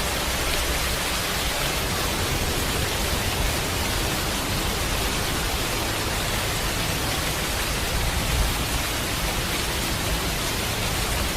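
Steady, even rushing noise spread across all pitches, like heavy rain or falling water, with no distinct calls or events.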